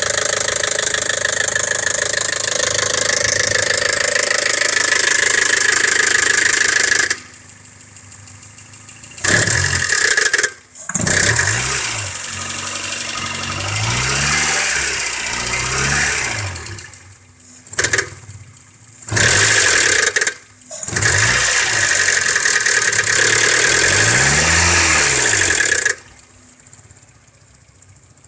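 Kia Carens 2.0 DOHC four-cylinder petrol engine being revved in repeated bursts, its pitch rising and falling, with quieter stretches in between and near the end. The noise is presented as an abnormal noise from the engine, cause not stated.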